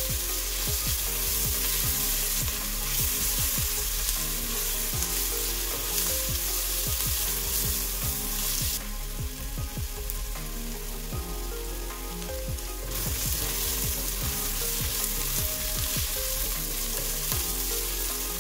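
Chopped onion, garlic and ginger sizzling in hot vegetable oil in a stainless steel pot, stirred with a wooden spatula that scrapes and knocks against the pot. The sizzle eases for a few seconds around the middle.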